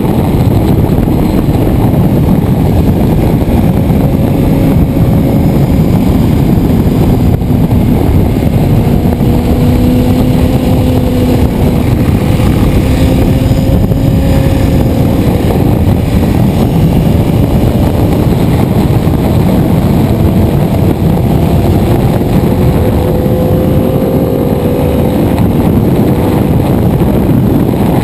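Ducati 848 Evo's V-twin engine running hard at track speed, its note rising and falling with throttle and gear changes, under heavy wind rush on the onboard microphone.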